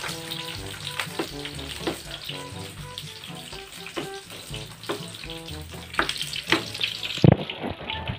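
Food sizzling as it fries in a pan on a gas stove, with the clack of a cooking utensil against the pan every second or so, and music playing underneath. A heavy thump about seven seconds in.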